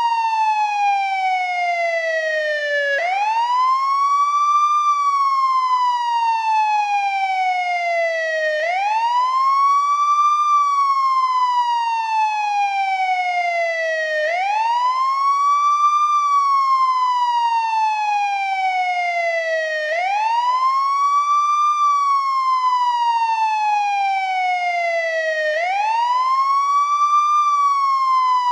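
Old-model American ambulance wail siren cycling steadily. Each cycle rises quickly over about two seconds and falls slowly over about four, repeating about every five and a half seconds.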